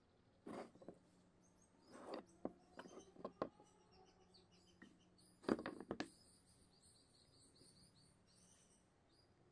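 Light knocks and taps of pine timber pieces being picked up, stood up and set down on a work table, the loudest cluster about five and a half seconds in. A bird chirps repeatedly in the background through the second half.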